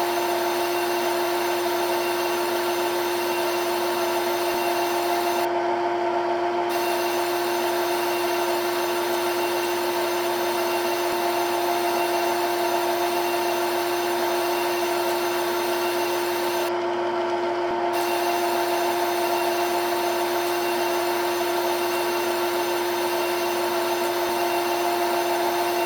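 Simulated CNC milling machine sound from CNC simulator software: a steady spindle hum with a hiss of cutting noise over it. The hiss cuts out twice, for about a second each time.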